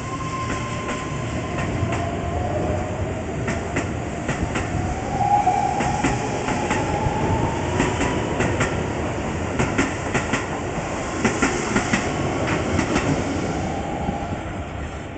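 Keihan 13000 series electric train pulling out and gathering speed. Its traction motors whine, rising in pitch, while the wheels click over rail joints in groups that come closer and closer together. The sound falls away near the end.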